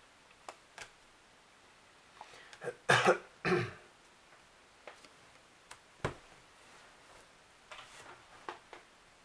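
Playing cards being dealt and laid onto a table, with light taps and card clicks, and a heavier knock about six seconds in. A person coughs twice about three seconds in, the loudest sound.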